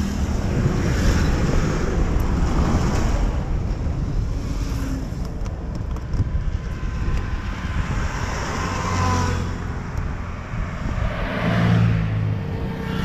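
Road traffic going by, several vehicles swelling up and fading away, with wind rushing on the microphone. A few light clicks come about halfway through, as a scooter's seat lock is turned with the key and the seat is lifted.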